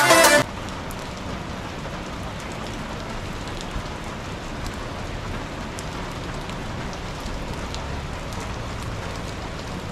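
Steady rain falling on a wet street and on umbrellas and awnings, an even hiss with a few faint drop ticks. Loud background music cuts off about half a second in.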